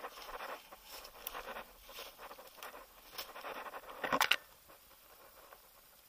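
Rustling of grass, leaves and brush as someone pushes through undergrowth on foot, in uneven bursts, with a louder cluster of sharp clicks about four seconds in.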